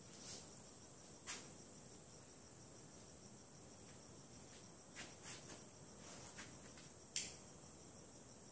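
Steady high-pitched chirring of crickets, with a few short clicks and taps over it, the sharpest about seven seconds in.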